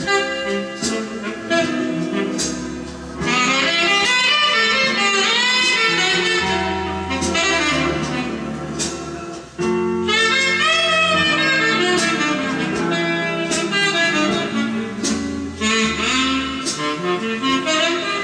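Instrumental jazz-style music with a saxophone lead over bass and a steady drum beat, played from a vinyl LP on a 1970s Philips Electrofon record player.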